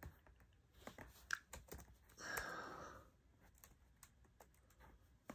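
Near silence: room tone with a few faint clicks in the first two seconds and a brief soft hiss a little after two seconds in.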